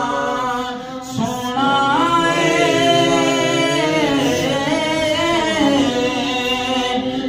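A man singing a naat unaccompanied into a microphone, drawing out long ornamented notes that bend up and down in pitch, with a short breath about a second in.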